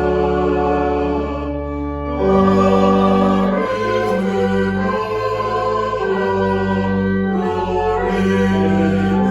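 Slow sacred choral music: singing voices over long held chords, changing every couple of seconds.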